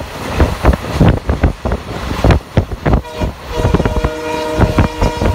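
A train horn sounds one long, steady multi-note chord from about three seconds in, over irregular loud thumping and rumbling noise.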